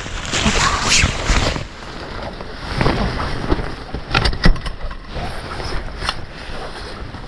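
Rustling and knocking as a fishing umbrella and its metal pole are handled against dry reeds, with a cluster of sharp clicks about four seconds in.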